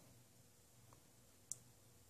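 Near silence: room tone, with a single short, sharp click about one and a half seconds in.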